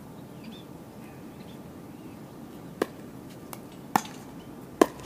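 Pickleball rally: paddles striking the hard plastic ball in sharp pops about a second apart, three loud hits starting about halfway through, with a fainter tick between the first two.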